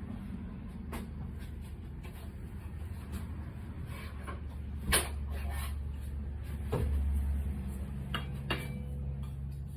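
Steady low hum from kitchen equipment, with a few sharp knocks and clatters of utensils or containers. The loudest knock comes about five seconds in and another near seven seconds.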